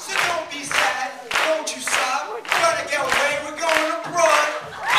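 A group of voices chanting together in unison, with hands clapping to a steady beat of about two a second.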